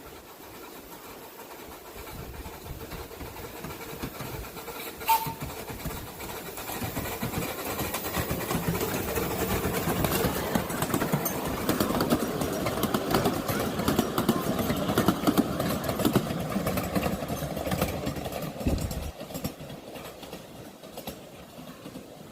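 A miniature railway train approaching and passing: its running grows louder, holds for several seconds, then fades away. There is one sharp click about five seconds in.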